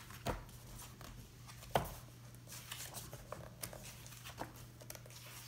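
Pages of a large hardcover book being flipped through by hand: soft paper rustling with a few sharp page flaps, the loudest one near two seconds in.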